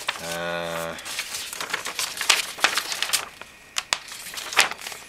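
A short held 'umm' of a man's voice in the first second, then a large paper instruction sheet rustling and crackling in irregular sharp crinkles as it is unfolded and handled.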